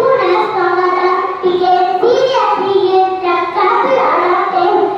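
A young girl's solo voice singing into a microphone, holding notes at steady pitches with short breaks between phrases.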